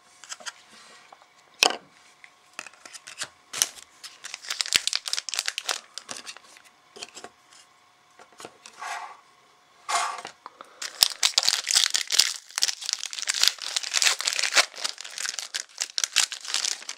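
Foil trading-card pack wrapper being torn open and crinkled: irregular crackling, sparse at first and then dense through the last six seconds.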